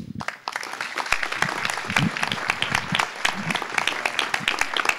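Audience applauding, breaking out a moment in and going on steadily, with a few voices among the clapping.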